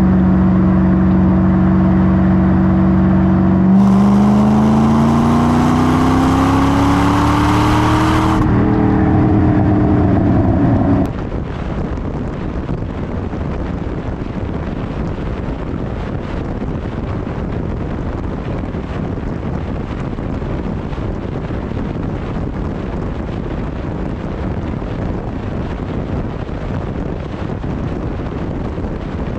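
Chevrolet Corvette V8 exhaust heard at the quad tailpipes, running steadily, then rising in pitch for about four seconds as the car pulls onto the freeway, then holding. About eleven seconds in, it cuts suddenly to a steady rush of wind and road noise over the car's roof at speed.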